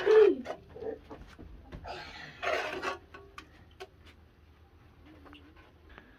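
A metal skimmer clinks and scrapes against a metal cooking pot and plate as boiled greens are lifted out. There is a louder wet scraping rush about two seconds in. A short voice-like call sounds right at the start.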